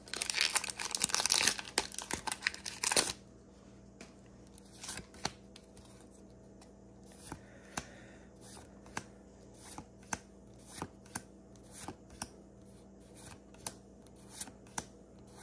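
A foil booster-pack wrapper crinkling and tearing open for about three seconds. Then trading cards are flicked through one at a time, each giving a short sharp click about once a second.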